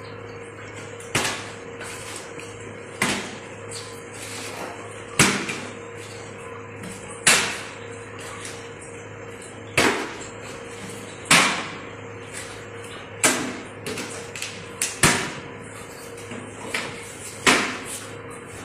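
A series of sharp smacks, about a dozen, one every second or two, each dying away with a short ring, over a steady low hum.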